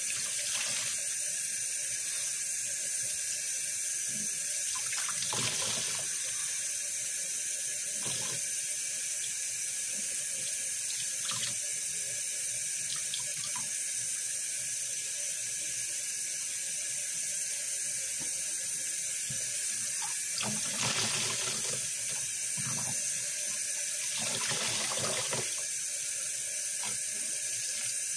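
Kitchen tap running steadily into a basin of soapy water while soaked sponges are squeezed and wrung under the stream, with several louder squelches and splashes, the biggest about a fifth of the way in and again about three quarters through.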